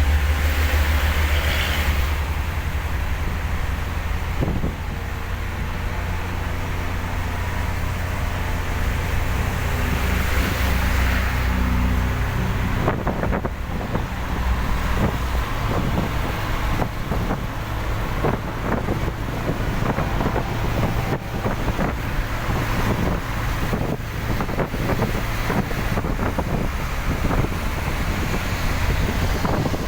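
Vehicle travelling on a rain-soaked road: a steady low rumble with tyre and wind noise. From about halfway there is a run of irregular light taps.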